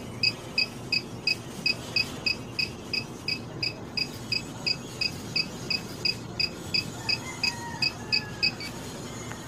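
SK-600I infusion pump beeping in a fast steady series, about three short high beeps a second, as a bolus is being run; the beeping stops near the end.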